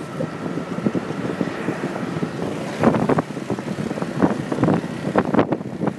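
Wind buffeting the microphone of a moving motorcycle, over the motorcycle's engine and surrounding street traffic; louder gusts swell about three and five seconds in.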